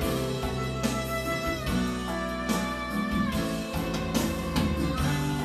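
Music: a song with guitar.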